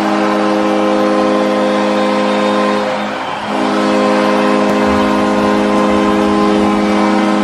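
New York Islanders' arena goal horn blasting, several steady tones sounding together. It is held in two long blasts with a brief break about three seconds in.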